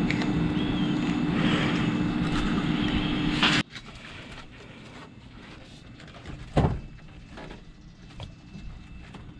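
A loud, steady drone with a low hum that cuts off suddenly, followed by quiet with scattered faint clicks and one sharp knock, typical of a wrench being worked on a seized exhaust oxygen sensor.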